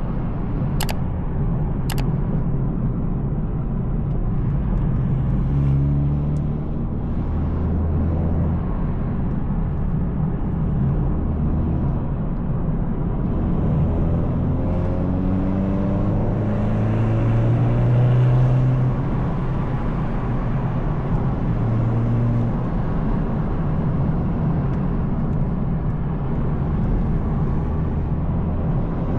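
A BMW 220i's turbocharged B48 four-cylinder, fitted with an M240i exhaust and a free-flowing downpipe, running while driving. The engine note climbs and drops back several times and is loudest a little past halfway. Two sharp clicks about a second apart come near the start.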